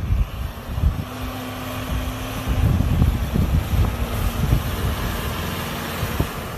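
Toyota Hilux pickup's diesel engine running steadily at low speed as the truck drives past through deep snow, with tyre and snow noise under the engine note.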